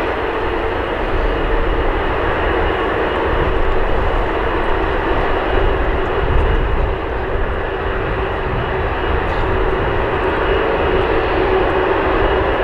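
Jet airliner engines running loudly and steadily: a noisy rush with a few steady tones in it.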